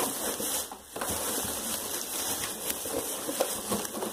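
Plastic bag crinkling and rustling as it is torn open and handled, a dense, continuous run of small crackles.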